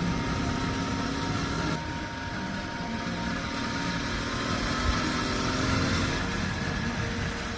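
Yamaha XTZ 750 Super Ténéré's parallel-twin engine running steadily while cruising, heard from on board mixed with riding wind noise. The sound shifts abruptly just under two seconds in.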